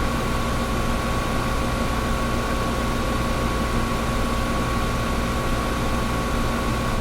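Air conditioner running steadily: an even rush of air over a low hum, with a few faint steady tones.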